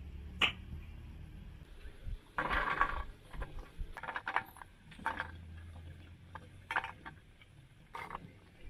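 A kitchen knife chops green beans on a wooden cutting board, then the blade scrapes the cut beans off the tilted board so they fall into a metal tray, in a string of short scrapes and clicks.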